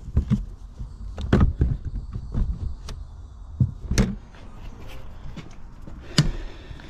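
Irregular knocks, clicks and clatter from hands and tools working on a car interior, over a low rumble, with a few louder knocks about a second in, around four seconds in and near the end.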